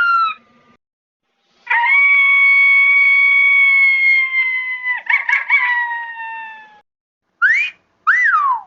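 A high-pitched human voice making a howling sound effect: one long held howl that slowly falls in pitch and wavers near its end, then two short yelps that rise and fall.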